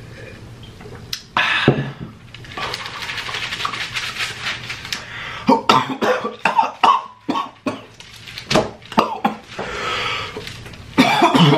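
A man coughing and gasping after gulping a spicy raw ginger juice shot, the ginger burning his throat: a sharp cough about a second and a half in, a long raspy breath, then a run of coughs in the middle and another near the end.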